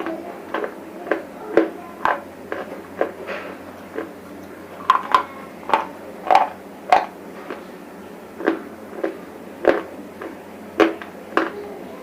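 Close-up crunching as dry chips of broken bars are bitten and chewed: a string of short, sharp cracks, roughly two a second, with a brief pause midway.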